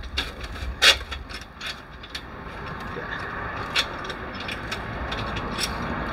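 Irregular metallic clicks and knocks from solar panel mounting clamps being fixed with a cordless drill-driver, with one sharper clack about a second in.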